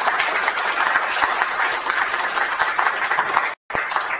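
Audience applauding: a steady patter of many hands clapping. It cuts out for a split second near the end, then comes back thinner and dies away.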